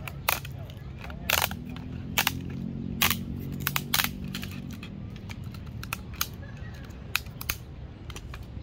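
Sharp clicks and snaps, about eight spread irregularly over several seconds, as the plastic housing of a Hagibis Queen 10 LED video light is pried and cracked open with pliers. A low steady hum runs underneath.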